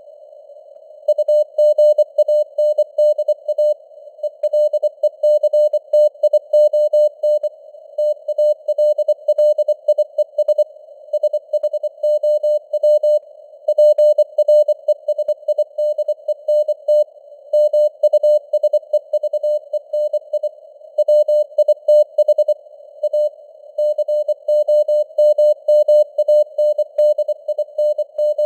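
Morse code (CW) sent at 24 words per minute: a single steady beep keyed rapidly on and off into dots and dashes, with short pauses between words. It sits over a faint hiss of simulated radio band noise.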